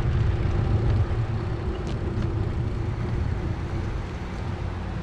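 Steady low rumble of a bicycle ride, with a couple of faint ticks about two seconds in.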